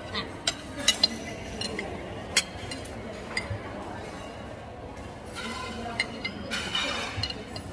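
Metal spoons and cutlery clinking against china plates and drinking glasses at a table, a scatter of short sharp clinks, with a spoon stirring in a glass near the end. Low voices murmur underneath.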